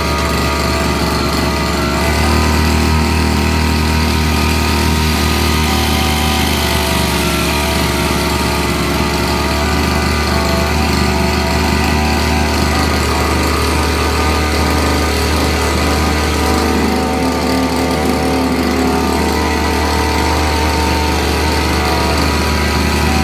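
Small petrol engine of a brush cutter running steadily during a running test, with a slight rise in engine speed about two seconds in and a brief dip later.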